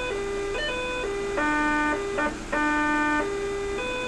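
Electronic test tone from a small loudspeaker driven by a DDS function generator. Its pitch jumps up and down in steps, about every half second, as the frequency knob is turned.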